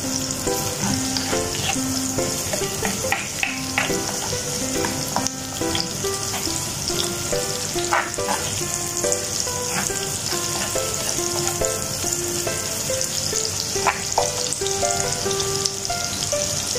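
Sliced onion and minced garlic sizzling in hot oil in a nonstick frying pan, being sautéed until translucent, with a spatula stirring and scraping the pan now and then. A faint melody of background music plays underneath.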